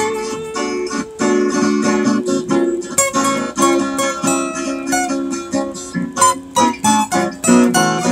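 Acoustic guitar picked with the fingers, a quick stream of single plucked notes over ringing lower strings, recorded sound-on-sound with layered guitar parts.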